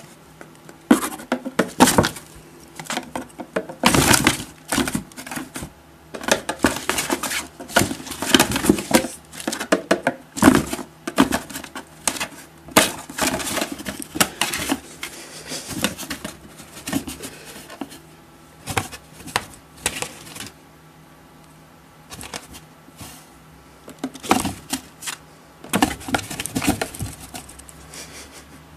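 A cat's paw scratching and batting from inside a cardboard shoebox, and a furry toy on a stick tapping against the box: irregular clicks, taps and scrapes, with a short quiet pause about three-quarters of the way through.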